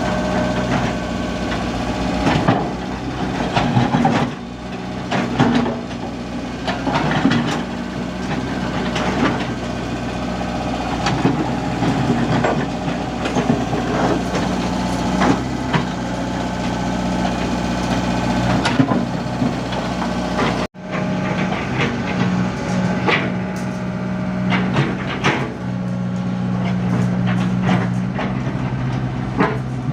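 Komatsu PC75 excavator's diesel engine running steadily, with repeated knocks and clatter as it works through debris. The sound drops out for an instant about two-thirds of the way through.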